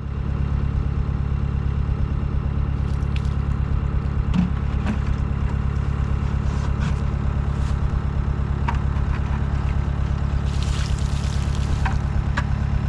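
Stihl MS 661 chainsaw on a Granberg Alaskan mill idling steadily, with a few light knocks and clicks.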